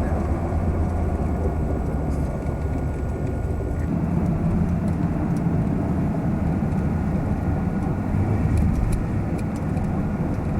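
A car driving steadily, with a constant low engine and road hum and no changes in pace.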